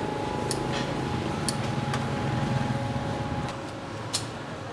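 Street-food stall ambience: a steady hum and low rumble of traffic, with several sharp clinks of dishes and utensils.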